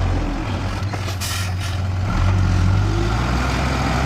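Heavy diesel earth-moving machinery engine running steadily, with a short hiss about a second in.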